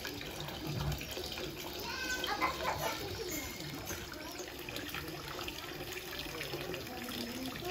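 Steady running water from the pool in an otter enclosure, with faint background voices.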